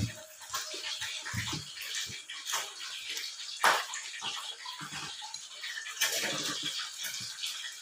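Close-up eating sounds: wet chewing and lip-smacking as food is eaten by hand, in short irregular bursts, with one sharp click a little past halfway.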